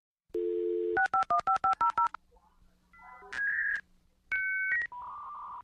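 Telephone dial tone for about half a second, then a quick run of about ten touch-tone dialing beeps, followed by a series of steady electronic whistles and hissing tones: a dial-up modem dialing out and beginning its connection handshake.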